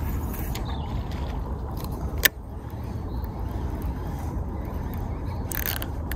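Baitcasting reel being worked during a lure retrieve, with one sharp click about two seconds in, over a steady low rumble of wind on the microphone.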